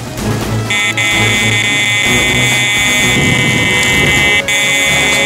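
Electronic carp bite alarm sounding a continuous high-pitched tone from under a second in, with one brief break near the end: a run, a carp taking line off the rod.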